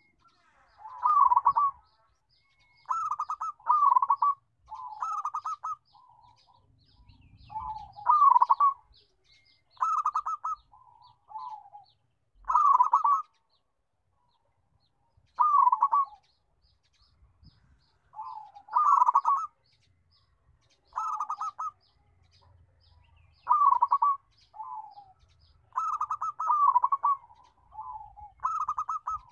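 Zebra dove (perkutut) singing its rolling, staccato coos, one short phrase every second or two, with a pause of about two seconds near the middle.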